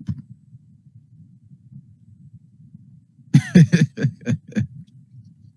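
A low, steady rumble, then about three seconds in a brief burst of a person's voice, several quick syllables.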